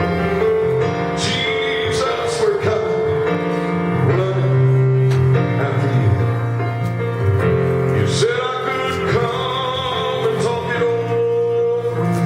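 A man singing a slow gospel worship song with long held notes over a recorded instrumental backing track.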